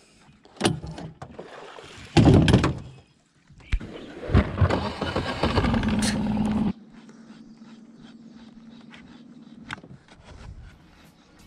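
Knocks and thumps of gear against an aluminium boat hull, with two loud rushes of noise, the second cutting off abruptly just before seven seconds in. A steady low hum of an electric trolling motor runs through the latter half.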